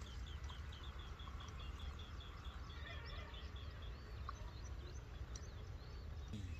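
A bird calling in a fast run of short, even chirps, about five a second, which stops about three seconds in; a few scattered higher chirps follow. A low steady rumble lies underneath.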